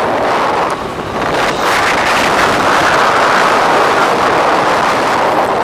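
Steady rushing wind noise on the microphone of a motorcycle moving at road speed, with the bike's running mixed in beneath it.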